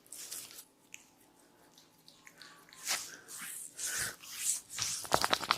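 A person's breathy exhales and sniffs, with one sharp click about three seconds in and a quick run of clicks starting near the end.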